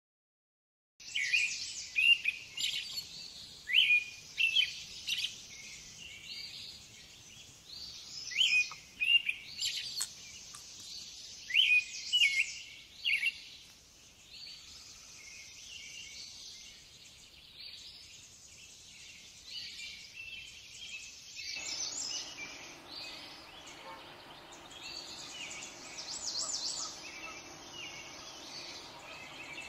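Small songbirds chirping and singing: many short, sharp calls and trills, loudest and most frequent in the first half. A steady low background hiss of the outdoors comes in about two-thirds of the way through.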